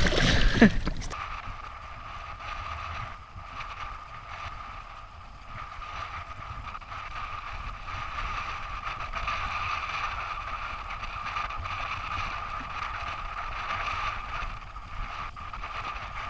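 A redfish splashing at the surface as it is released from a kayak, loudest in the first second. Then a steady, quieter noise with a faint even high hum.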